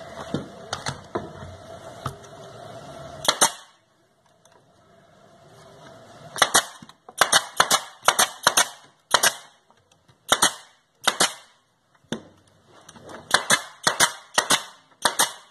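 Pneumatic brad nailer firing repeatedly, driving brads through glued pine boards. About twenty sharp shots, a few scattered early and then in quick clusters of several shots each.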